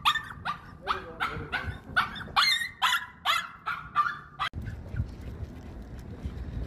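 Small dog barking excitedly, a rapid run of short high-pitched barks, about two or three a second, that stops abruptly about four and a half seconds in. The dog is over-excited and impatient to get going.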